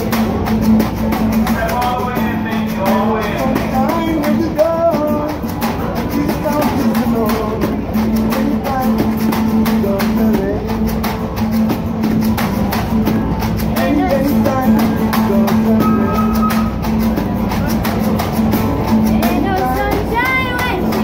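Takamine acoustic guitar strummed in a steady rhythm, with a pair of handheld shakers keeping time alongside it.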